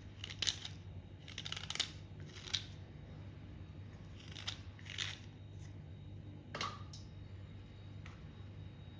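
A small metal knife scraping the soft outer layer off a soaked white clay block, in about seven short scrapes coming in irregular bursts.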